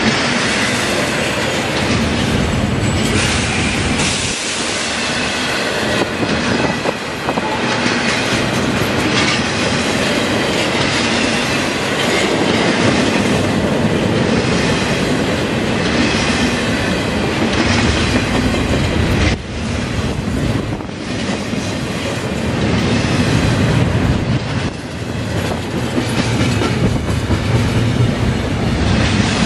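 A double-stack intermodal freight train's cars rolling past at close range: a loud, steady rumble and clatter of steel wheels on the rails, with a couple of brief dips in level as the cars go by.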